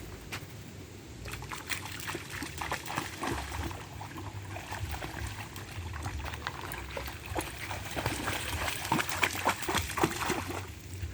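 Water splashing in quick, irregular wet clicks that start about a second in and stop shortly before the end, over a steady low rumble.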